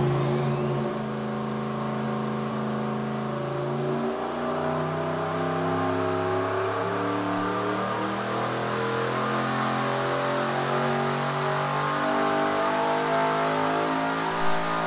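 Turbocharged 408-cubic-inch LS V8 on an engine dyno making a full-throttle pull, revving steadily up through the rpm range with a thin high turbo whine over the exhaust note. It is running with no intercooler.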